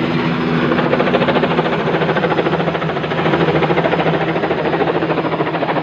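Helicopter flying low overhead, its rotor beating in a fast, steady pulse over the engine's whine.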